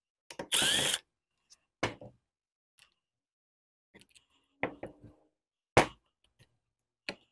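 Cordless drill-driver spinning a bolt out of a chainsaw's intake for about half a second near the start, its whine rising. Then a few scattered clicks and knocks of parts being handled, the sharpest about two-thirds of the way through.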